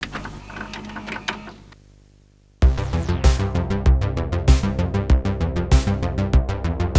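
Electronic background music with a drum-machine beat that starts abruptly about two and a half seconds in, with a kick roughly every 0.6 seconds. A quieter sound fades out before it.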